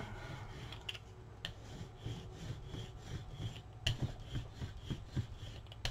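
Rubber brayer rolling acrylic paint back and forth across a gelli plate: a repeated sticky rubbing, with a few light clicks.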